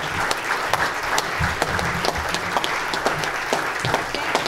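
Standing ovation from a roomful of conference delegates: steady applause with many distinct hand claps.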